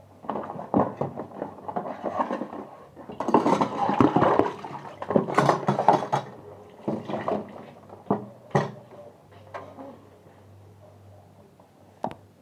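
Dishes and plastic containers knocking and clattering as they are handled at a kitchen sink, with water sloshing. The clatter is busiest in the middle and thins out, with a last single knock near the end.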